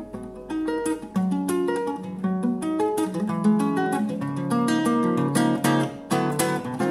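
Solo nylon-string classical guitar played fingerstyle: a steady flow of plucked single notes and chords, the picking growing busier near the end.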